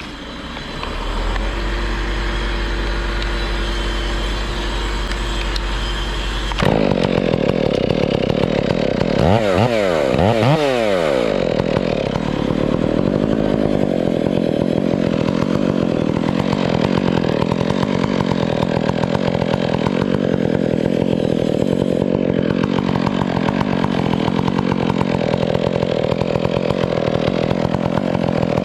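Stihl chainsaw engine running. About seven seconds in it gets suddenly louder, revs up and down a few times, then holds a steady high speed with small dips in pitch.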